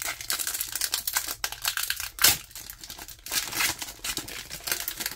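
Foil wrapper of a Pokémon TCG Scarlet & Violet 151 booster pack crinkling in the hands as it is torn open across the top, with a louder crackle a little over two seconds in.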